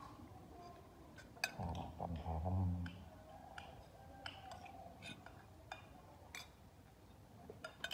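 Spoons and hands on china plates and dishes during a meal on a floor mat, making scattered light clicks and clinks. A brief low murmur of a voice comes about two seconds in.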